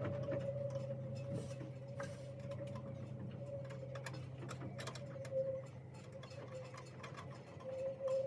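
Small irregular clicks and ticks of nuts being run onto the studs of a sea strainer lid, over a steady hum.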